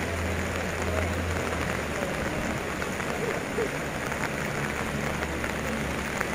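Steady hiss of rain and fast-flowing floodwater, with the low, even hum of a rescue boat's outboard motor underneath.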